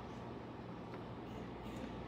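Quiet room tone: a steady low hum and hiss, with a few faint clicks about a second in and near the end.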